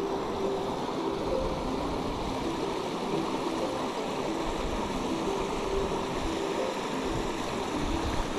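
A small hill burn running steadily over a rocky cascade into a pool, with faint background music playing over it.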